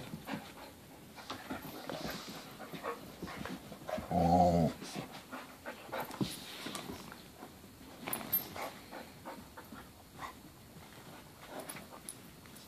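Dogs playing together on carpet: scuffling and panting, with one short low growl about four seconds in.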